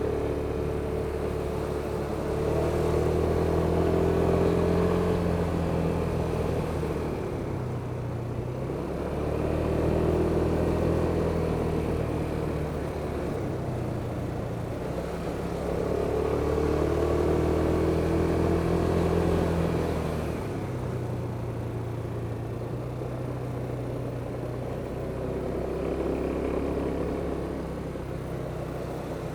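Kymco Superdink 300 maxi-scooter's single-cylinder four-stroke engine heard while riding. Its note rises and falls about four times as the throttle is opened and eased, over a haze of wind and road noise.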